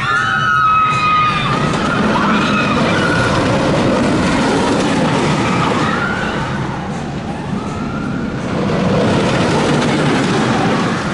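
Wooden roller coaster train running over its timber track, a steady loud rumble, with riders' high screams rising and falling over it, strongest about a second in.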